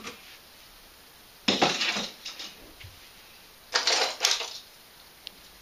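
Christmas baubles clinking together as they are dropped into a toy trailer full of baubles: two short bursts of clinking, about a second and a half in and about four seconds in, then one small click near the end.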